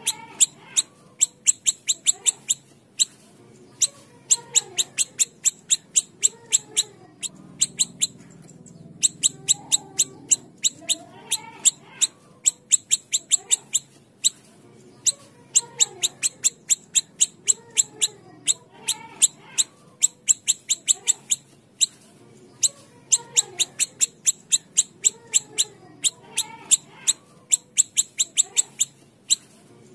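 Siri-siri kecil songbird calling: quick runs of sharp, high ticking notes, several a second, each run lasting a second or two with short gaps between, over softer, lower sliding notes.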